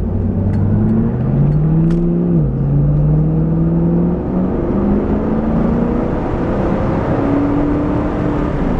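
The 2001 Chevrolet Camaro Z28's 5.7-litre LS1 V8 accelerating hard through the gears. The engine pitch climbs and then drops at each upshift, about two and a half seconds in, about four seconds in and again near the end.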